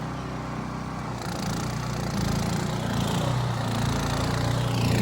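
A small engine running steadily and growing louder from about a second in, like a small motor vehicle under way.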